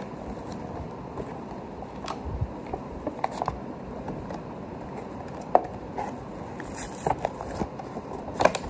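Toy packaging being forced open by hand: scattered sharp clicks, scrapes and crackles of card and plastic over a steady low rustle.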